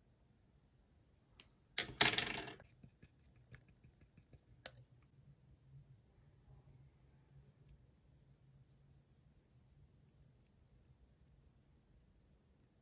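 A small hard object clatters down about two seconds in, rattling briefly, with a light click just before it and another a few seconds later. Faint scattered tapping follows, as makeup items are handled.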